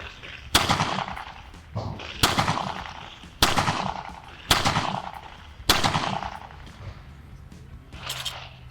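Five pistol shots from a Tanfoglio, fired one after another about a second or a second and a half apart, each with a short echoing tail. The cartridges are handloads with a 9.65 mm crimp, being fired over a ballistic chronograph.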